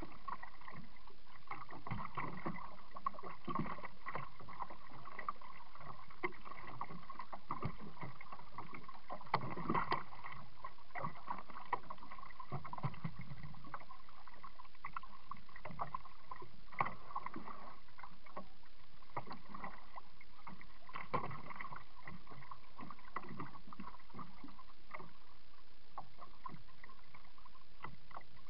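Water and paddle sounds of a Pelican 80 kayak under way: irregular knocks and splashes against the hull over a steady hum, picked up through a small waterproof camera mounted on the kayak.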